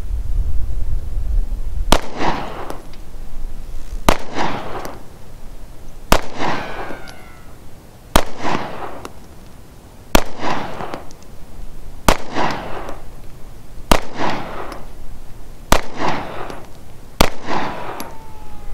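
Springfield XD(M) 9mm pistol with a 3.8-inch barrel fired in slow aimed single shots: nine shots about two seconds apart, each trailing off in an echo.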